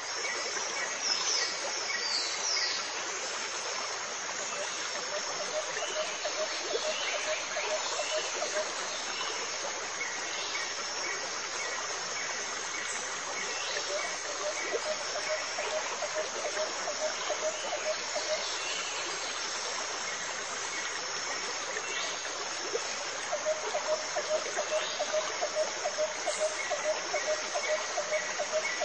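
Steady rushing, water-like hiss with a faint high whine, joined at times by a rhythmic chirping pulse that starts and stops several times.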